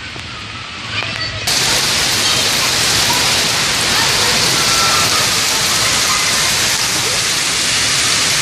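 Heavy rain falling, a steady hiss that suddenly becomes louder about a second and a half in.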